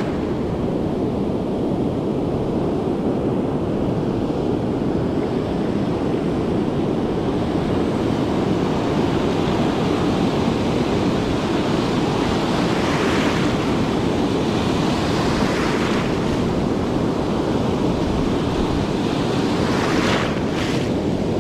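Ocean surf breaking and washing on the beach, a steady rush with wind buffeting the microphone; the wash swells louder and hissier about two-thirds of the way through and again near the end.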